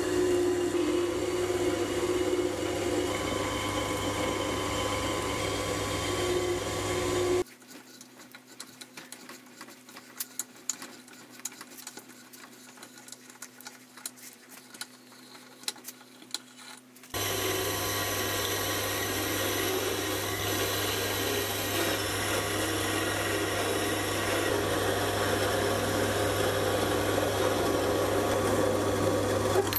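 Sieg C3 mini metal lathe running steadily, turning a 1020 steel stud. About seven seconds in it gives way to a quiet stretch of small irregular clicks as an M8 die is worked by hand onto the stud, and about ten seconds later the lathe runs again.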